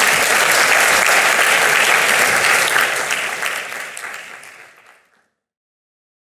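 Audience applauding after a talk, steady at first, then fading out and gone about five seconds in.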